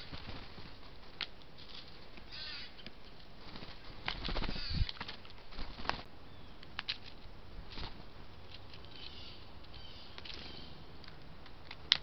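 Birds feeding at a wooden platform feeder: scattered sharp taps and clicks of pecking, a brief flurry of wingbeats about four seconds in, and faint high chirps. A single loud tap comes near the end.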